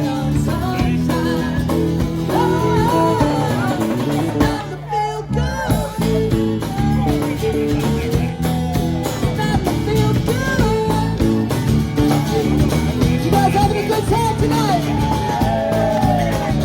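A band playing a song: a lead singer over guitar and a rhythm section, with the instruments briefly dropping out about five seconds in.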